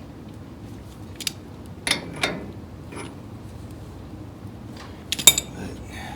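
A few sharp metallic clicks and clanks from hand tools and steel parts being worked on a car's front suspension: one about a second in, two close together near two seconds, and the loudest, briefly ringing, about five seconds in.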